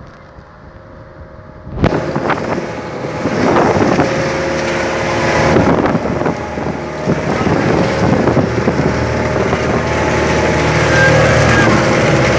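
Fishing boat's engine running steadily, mixed with wind buffeting the microphone and the rush of water. The sound jumps suddenly louder about two seconds in.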